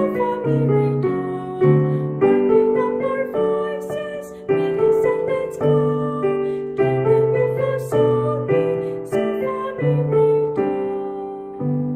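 Piano playing the solfège warm-up pattern do-re-mi-fa-sol-mi-sol-fa-mi-re-do as chords with a bass line, struck at a steady pace. A woman's voice sings the syllables along with it.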